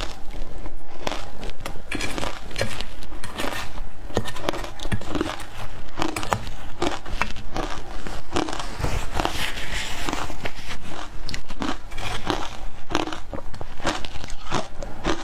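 Mouthfuls of matcha-dusted ice being bitten and chewed, a long run of sharp crunches in quick succession.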